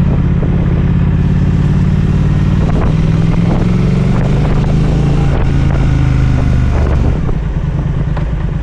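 Triumph Speed Twin 1200's parallel-twin engine running under throttle while riding, its pitch rising about three seconds in, then easing off and getting quieter near the end.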